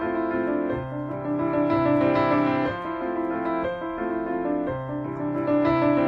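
Background piano music, one note or chord giving way to the next about every second.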